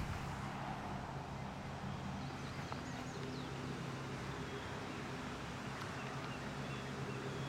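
Steady low machine hum in the background, with a few faint bird chirps about three seconds in.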